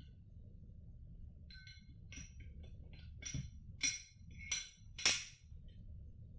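Small pistol parts being handled during reassembly: a few light metallic clinks, then three sharp clicks, the last the loudest.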